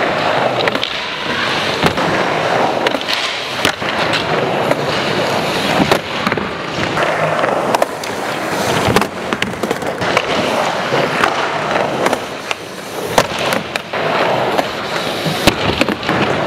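Skateboard wheels rolling over the ramps, broken by sharp clacks of the board hitting the ramp surface. Near the end comes a slam, the skater falling and the board clattering away.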